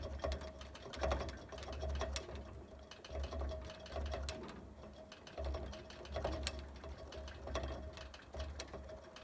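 Railroad crossing gate mechanism whirring and clicking in short, uneven spurts about once a second as it keeps jiggling the raised arm back and forth with no train present: the gate is malfunctioning.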